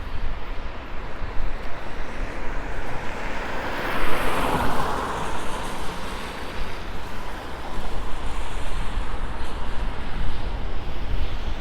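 Street traffic mixed with wind rumbling on the microphone; a car passes about four seconds in, its tyres hissing on wet pavement as it swells and fades.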